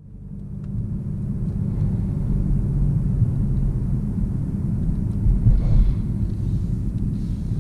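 Low, steady road and tyre rumble inside the cabin of a BMW 530e xDrive plug-in hybrid sedan driving at about 50 km/h on a wet, snowy street, fading in over the first second, with a couple of louder bumps about five and a half seconds in.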